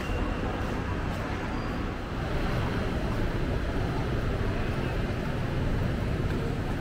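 Steady outdoor urban background noise, mostly a low rumble, with no distinct events standing out.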